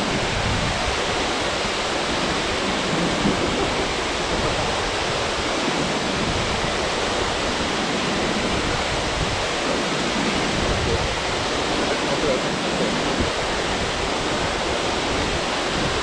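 Steady rush of a waterfall plunging into its pool, an even, unbroken noise.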